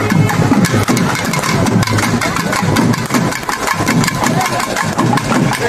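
Loud, continuous procession din: rapid, dense strokes on traditional frame drums over crowd noise and a steady low hum.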